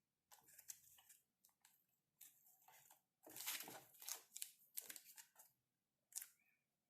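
Keycap packaging being handled: irregular crinkling and rustling in short bursts, busiest in the middle, with one brief last rustle near the end.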